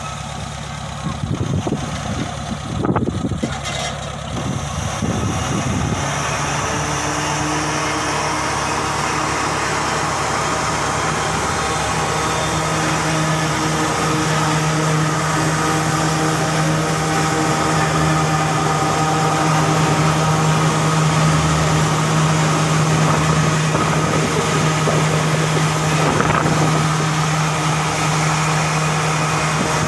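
Off-road vehicle engine running at a steady speed, with a few irregular bursts of noise in the first few seconds.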